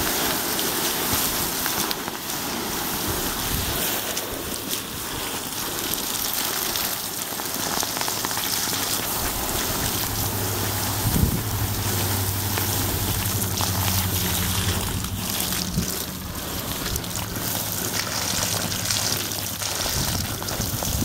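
Garden hose water spraying onto a hot, freshly quenched 4140 steel anvil block, splashing and steaming as it cools the block down. A low hum sounds in the background from about halfway through, and there is a single knock a little after that.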